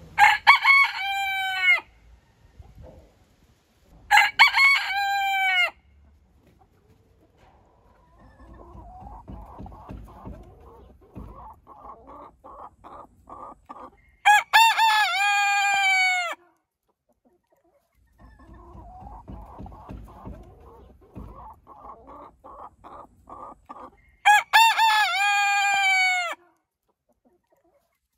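Roosters crowing four times, each crow lasting about two seconds, the first from a Polish Frizzle rooster. Between the later crows, hens cluck in runs of short, evenly spaced notes.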